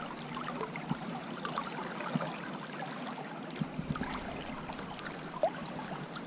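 Steady rush of a shallow river flowing over riffles, with a few faint clicks scattered through it.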